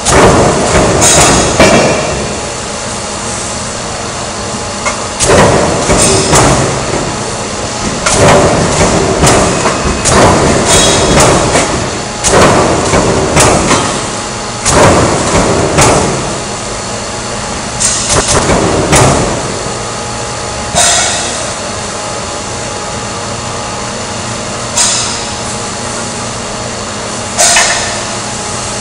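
Sheet-metal guillotine shear running steadily, with a loud clanking bang every few seconds as it cuts steel sheet into strips and the metal rattles.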